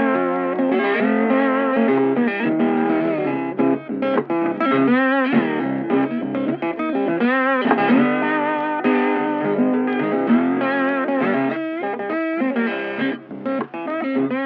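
Background music led by a guitar playing a melody, with some wavering, bent notes partway through.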